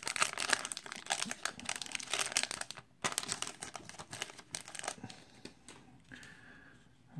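A 1993 Score baseball card pack's wrapper being torn open and crinkled by hand, with a short break about three seconds in. The crinkling dies down after about five seconds.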